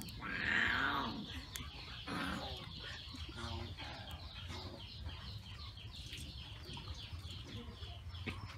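Chickens clucking, with one loud call about half a second in and shorter calls after it. Small high chirps repeat throughout.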